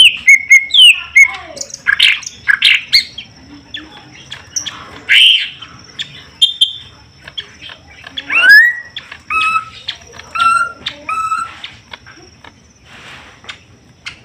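Caged green leafbirds (cucak ijo) calling: a busy mix of sharp chirps, whistled glides and squawky notes. About eight seconds in comes a rising whistle, then a run of repeated two-note calls.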